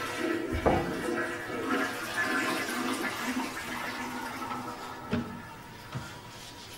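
A toilet flushing in a tiled washroom: a rush of water that starts suddenly and slowly dies away. There is a thump under a second in and two knocks about five and six seconds in.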